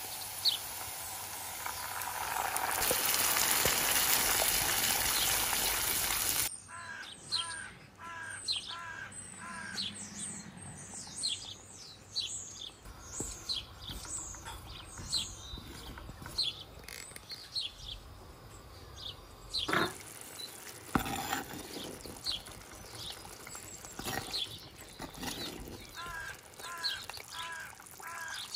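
Red masala paste sizzling loudly as it hits hot oil and onions in the pot, cutting off abruptly about six seconds in. After it, birds chirp throughout, with a short repeated five-note phrase twice, and there are a few sharp knocks.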